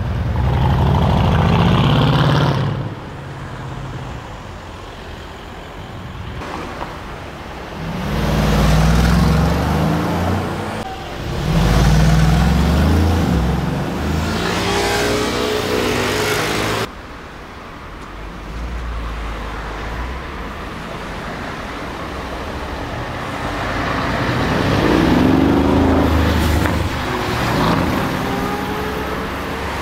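Brabus-tuned Mercedes-AMG performance cars revving and accelerating hard, in several loud bursts of engine and exhaust sound, one with a clearly rising pitch. It cuts off suddenly partway through, and another car's engine swells up near the end.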